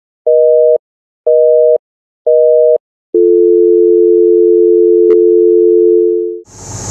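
Telephone busy signal, a two-tone beep pulsing half a second on and half a second off three times, then a steady dial tone from about three seconds in with a single click partway through. Near the end it cuts abruptly to steady engine noise.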